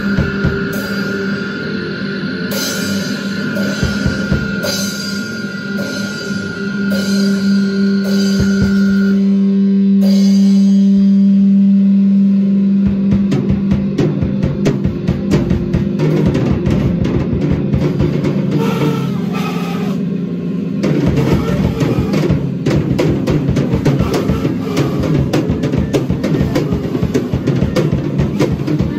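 Improvised noise-rock jam on drum kit and electric bass, recorded on a phone's microphone. A held droning tone with a pulsing high hiss fills the first third, then gives way to dense, fast drumming with cymbals that gets heavier and louder about two-thirds of the way in.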